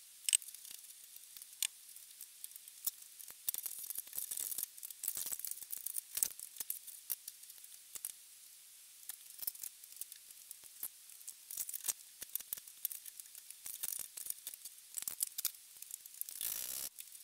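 Faint, scattered metallic clicks, taps and light scrapes of steel parts being handled inside an open lathe headstock gearbox, with a longer scrape near the end.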